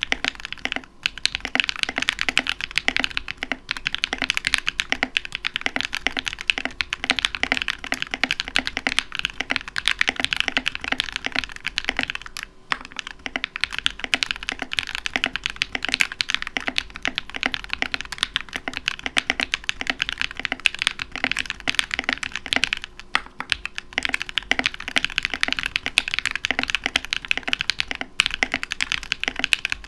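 Fast continuous typing on a modded GK61 60% mechanical keyboard with lubed KTT Rose linear switches, a PE-foamed build and a bottom case filled with pennies and Kilmat dampening. There is a brief pause about twelve seconds in.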